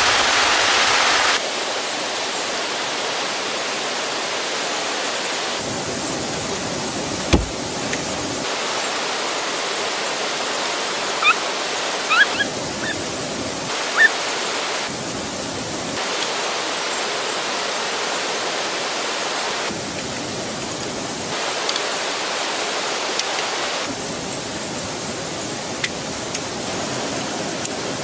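Steady rushing water noise, stepping up and down in level at several cuts. It is broken by a single sharp knock about seven seconds in and a few short clicks and chirps a few seconds later.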